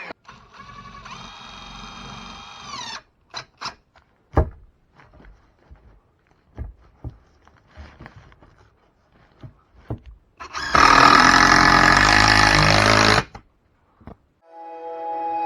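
A power tool runs in short bursts during wood framing: a whirring run of about three seconds, then scattered knocks and clicks, then a louder run of about two and a half seconds. Music comes in near the end.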